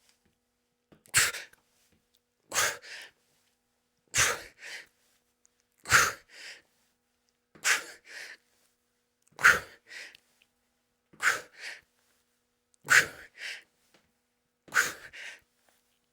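A man breathing hard and forcefully through an exercise set of mountain climbers: a sharp, loud puff of breath followed by a softer one, repeating in a steady rhythm about every second and a half to two seconds.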